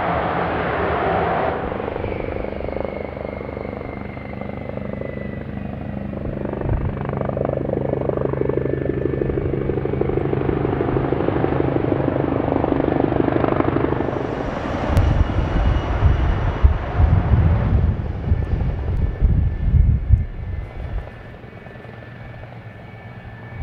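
Twin General Electric J79 turbojets of an F-4EJ Kai Phantom running steadily on the ground, a rushing jet noise with a thin high turbine whine. Irregular low rumbling gusts come in during the latter half.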